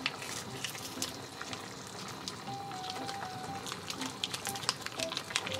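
Pot of pork and innards simmering in its broth, a steady bubbling with many small irregular pops and crackles. Soft background music with a few held notes underneath.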